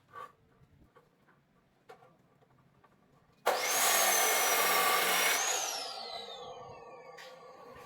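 A handheld electric power tool switched on abruptly with a high whine, running for about two seconds, then switched off and winding down, its whine falling steadily in pitch as it coasts to a stop.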